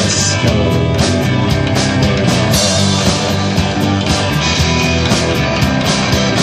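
Live rock band playing: distorted electric guitars over electric bass and a drum kit, with steady cymbal and drum hits.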